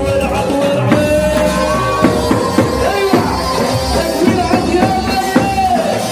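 Palestinian dabke music: a male singer on a microphone with bending, ornamented lines over a held melody line and a steady drum beat.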